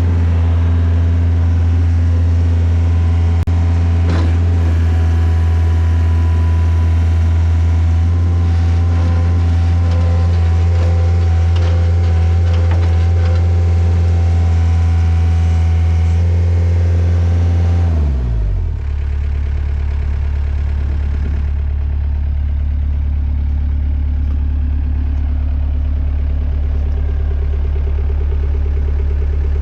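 Takeuchi TL130 skid steer's diesel engine running steadily at raised revs, then about two-thirds of the way through the revs drop and it settles into a steady low idle.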